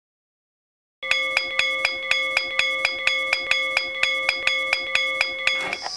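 A metal bell struck over and over, about four strokes a second, its ringing tones held at one pitch throughout; it starts about a second in and stops just before the end.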